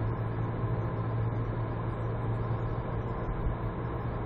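Car's engine and tyre-on-road noise heard from inside the cabin while cruising steadily at about 65 km/h: a constant low hum under an even road rush.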